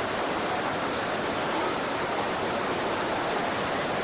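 Fast-flowing floodwater rushing past, a steady, even wash of noise.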